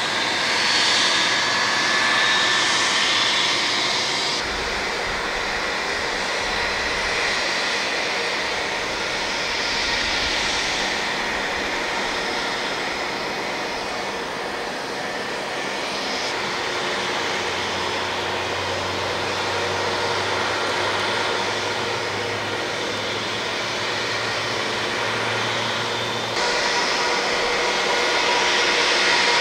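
Airbus A319 jet engines running with a steady whine over a noisy rush, a few steady high tones on top. The sound changes abruptly twice, once about four seconds in and again near the end.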